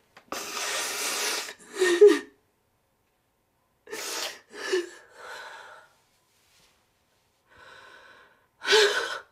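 A young woman sobbing: loud, ragged gasps for breath broken by short cries, coming in several bouts with silent pauses between them.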